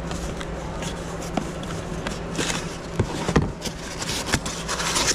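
Cardboard box being opened by hand and a foam packing insert pulled out: scattered knocks and clicks, with brief scraping and rustling of cardboard and foam, over a steady low hum.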